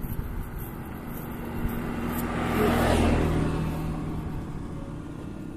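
A motor vehicle passes close by. Its engine hum and road noise swell to a peak about three seconds in, then fade away.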